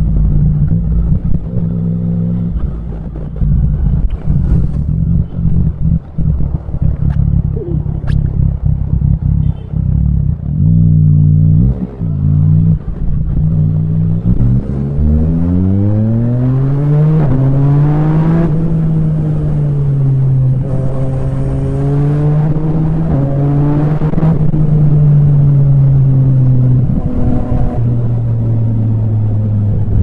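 Yamaha MT-09's inline three-cylinder engine rumbling at low revs, then accelerating with its pitch climbing in steps and brief dips between gears. It settles into a steady cruise and drops lower near the end.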